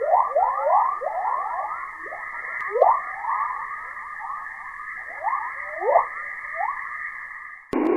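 Sonified space radio recording: many short, falling whistle-like tones tumbling over a steady high hiss. Near the end it cuts abruptly to a steady rushing noise.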